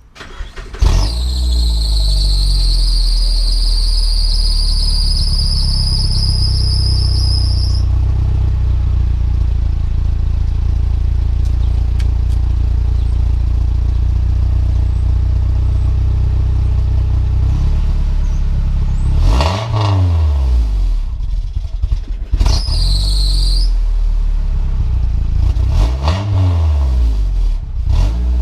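Third-generation Mitsubishi Eclipse engine starting about a second in and idling through its current, temporarily repaired exhaust, with a high squeal over the first several seconds. Near the end the throttle is blipped a few times, each rev rising and falling, with another brief squeal after the first rev.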